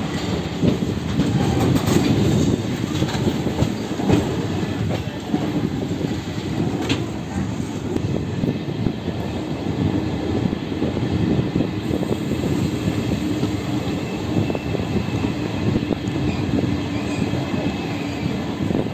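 Passenger train coach running along the track, heard from its open door: a steady rumble of wheels and running gear with a continual clickety-clack over the rail joints.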